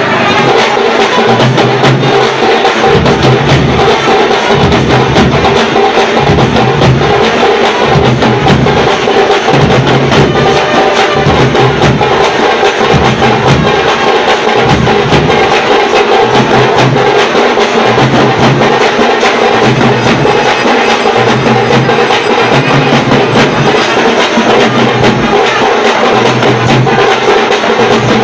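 Loud percussion music: drums with a dense, fast clacking beat and repeating low drum strokes.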